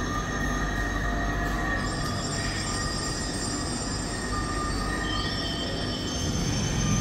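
Steady mechanical drone with several high, steady whining tones layered over a low rumble; the whining tones change pitch about two seconds in and again near the end.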